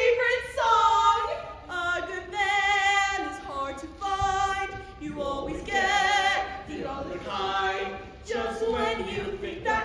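Women's voices singing a show tune on stage, holding long notes with vibrato, with no instrumental backing.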